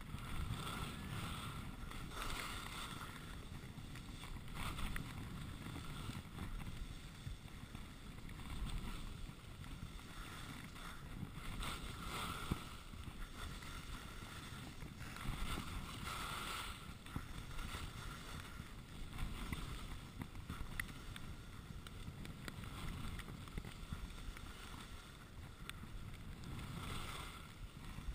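Skis hissing and scraping over groomed snow in a run of turns, the hiss swelling with each turn every few seconds, over steady wind on the microphone.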